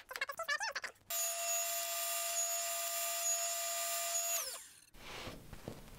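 Table saw running with a steady high whine, then spinning down near the end and cutting off. It is preceded by about a second of wavering, warbling sound.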